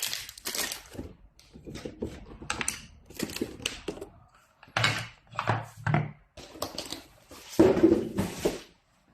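Handling noise from unpacking small lock hardware: irregular rustling of plastic packaging with clicks and knocks of small hard parts, the loudest rustle coming near the end.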